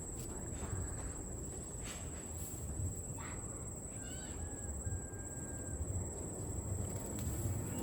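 Riverside ambience: a steady high-pitched insect trill over a low rumble, with a short chirping call about four seconds in.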